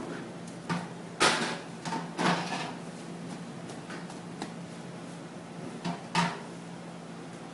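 Metal knocks and clanks from a galvanized trash-can raku reduction chamber as its lid is pressed down and settled on the burning can, about half a dozen in all, the loudest about a second in, just after two seconds and about six seconds in.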